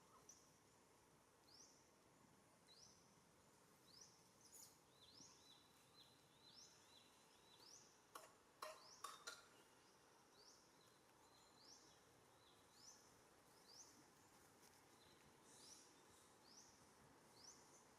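Faint short rising chirps from a bird, repeating about once a second, over quiet outdoor background. A cluster of sharp clicks about halfway through is the loudest sound.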